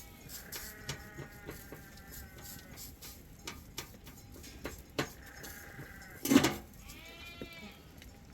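Sheep and goats bleating: several drawn-out, wavering calls, with a loud thump about six seconds in.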